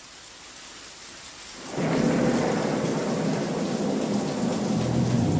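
Recorded rain and thunder. A steady rain hiss grows much louder about two seconds in, as a low thunder rumble joins it.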